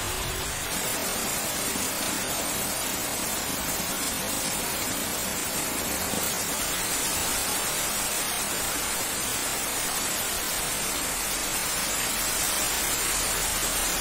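Steady heavy rain falling on leaves and waterlogged ground: an even, unbroken hiss.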